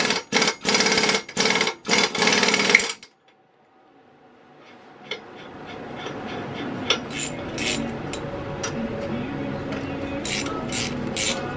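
Impact wrench running in several short bursts, undoing bolts on a small engine's sheet-metal shroud. After a short pause, quieter clicking and scraping follow as fasteners are worked loose by hand.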